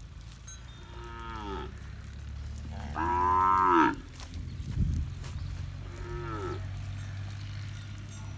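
Cattle mooing three times: short calls about a second in and about six seconds in, and a louder, longer moo in between. Each call drops in pitch at its end.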